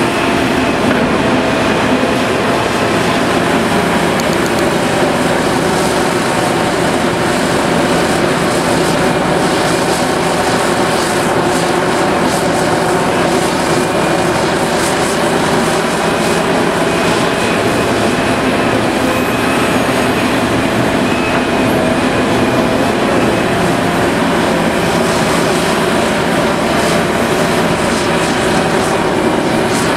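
Heavy diesel machinery, the Liebherr 974B excavator's engine, running steadily and loudly, with a few faint clicks or rattles around the middle.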